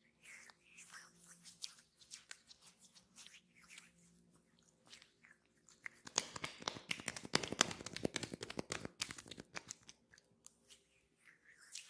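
Close-miked hands rubbing and kneading skin during an oil massage: sticky crackling friction, sparse at first and densest from about six to ten seconds in.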